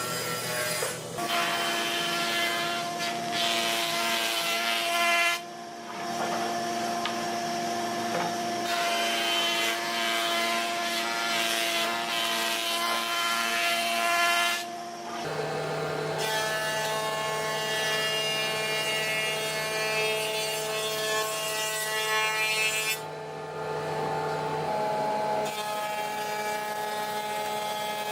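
Electric power tool running and working wood, a steady motor whine over the rasp of the cut, broken by three short pauses, with the motor pitch shifting a little between stretches.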